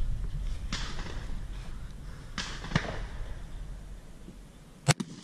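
A single shot from an American Tactical Nomad single-shot shotgun, one sharp blast near the end. A few fainter pops come before it over low wind rumble.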